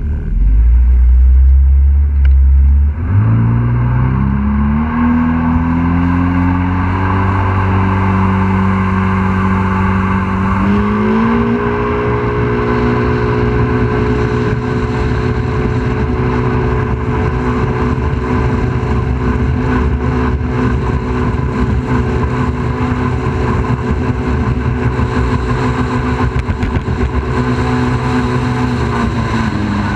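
A boat's engine running under way, with water noise. After a heavy low rumble in the first three seconds, the engine pitch rises at about three seconds and again at about eleven seconds, holds steady, and eases off slightly near the end.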